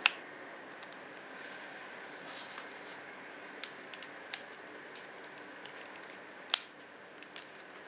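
Sharp clicks of a Capdase Alumor metal phone case being snapped and pressed onto a BlackBerry Torch 9800: one at the very start, a few small ones in the middle, and the loudest near the end. A steady faint hiss runs underneath.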